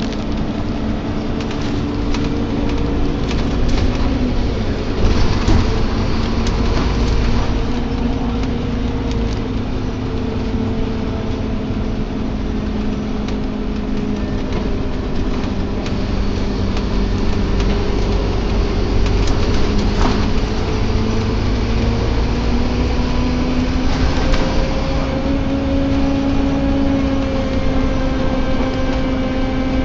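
Inside a moving Scania Omnilink (K230UB) single-deck bus: a low drone from the five-cylinder diesel and the road, with a groaning tone that slowly rises and falls in pitch. Scattered clicks and rattles from the bus body come over it.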